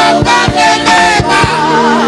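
Live gospel worship music: a singer's wavering, held voice over a band with a steady drum beat.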